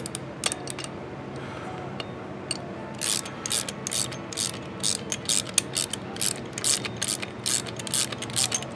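Socket ratchet clicking as it tightens the top nut onto a rear shock absorber's threaded shaft and mount. A few scattered clicks come first, then from about three seconds in a steady run of quick strokes, about three a second.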